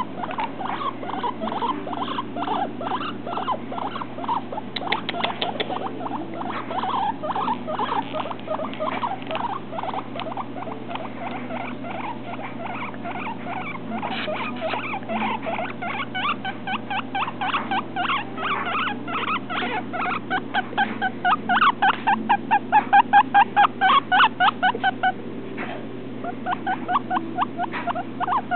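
Baby guinea pig making a long run of short squeaking calls in quick succession, the calls growing louder and more regular about two thirds of the way in, with a brief pause near the end.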